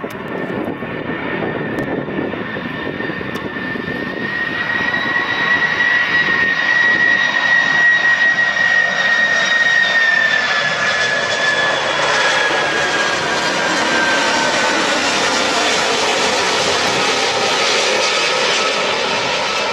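Lockheed C-5M Galaxy's four turbofan engines on landing approach, passing low with gear down: a loud jet whine that builds to a peak about halfway through and then slides gradually lower in pitch as the aircraft goes by.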